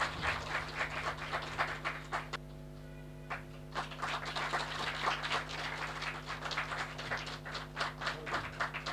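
Audience applauding, with a short lull about two and a half seconds in before the clapping picks up again.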